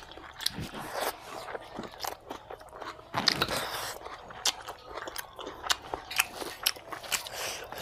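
Close-up eating sounds from people eating mutton curry and rice by hand: wet chewing and lip-smacking, with many sharp mouth clicks throughout.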